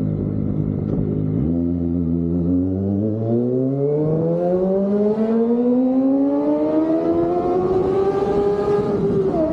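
Kawasaki ZX-25R's 250 cc inline-four engine through an Austin Racing aftermarket exhaust, accelerating hard. The engine note climbs steadily for about eight seconds after the throttle opens, then drops in pitch near the end as it shifts up.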